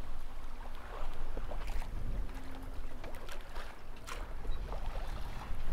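Water rushing and splashing along a sailing yacht's hull as it moves through the sea, over a low steady rumble.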